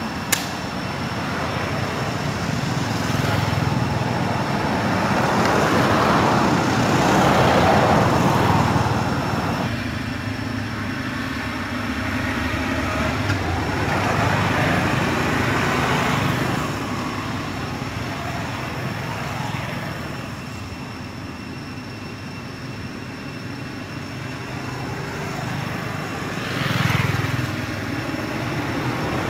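Road traffic in the background: passing vehicles whose noise swells and fades several times over a steady hum. There is one sharp click just after the start.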